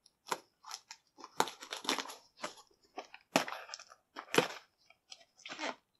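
Plastic mailer package crinkling and rustling in a string of short irregular bursts as gloved hands handle it.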